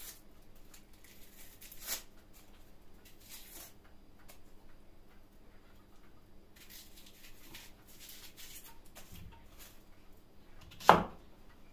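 Quiet handling sounds while preparing an onion for chopping: soft rustles and light ticks, with one sharp knock near the end.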